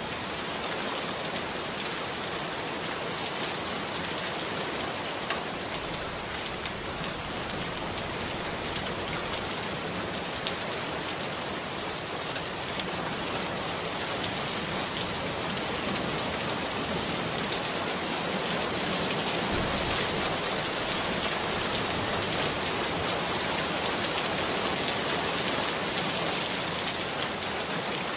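Steady rain: an even hiss of rainfall with scattered drop ticks.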